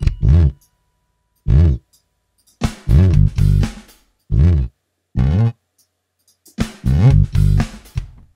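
Ample Bass virtual electric bass sounding single plucked notes and two short runs of notes, with silences between. These are the notes of a bass fill being written into the line.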